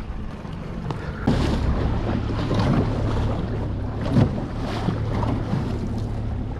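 A small fishing boat's motor running with a steady low hum that comes in about a second in, under wind buffeting the microphone.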